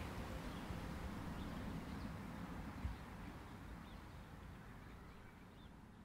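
Faint outdoor ambience with a few soft, high bird chirps, fading out steadily, with one brief low bump about three seconds in.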